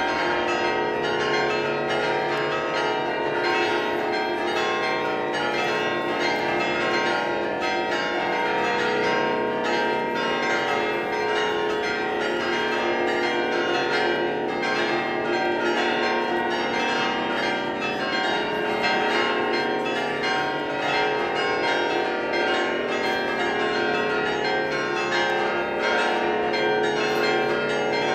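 Saint-Sernin basilica's carillon bells ringing a festive peal: many bells of different pitches sounding together in a dense, continuous stream of overlapping strikes and ringing tones.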